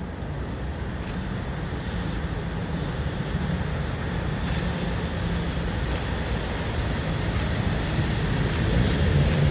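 Diesel freight locomotive approaching at low speed, its engine drone slowly growing louder.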